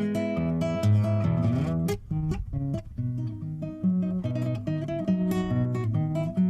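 Acoustic guitar music, plucked notes over a stepping bass line, with a brief break about two seconds in.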